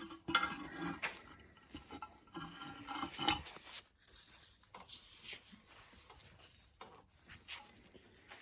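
Metal mower parts being handled on a workbench: irregular rubbing and scraping with light clinks, and a few sharper knocks about a third of a second in, after three seconds and after five.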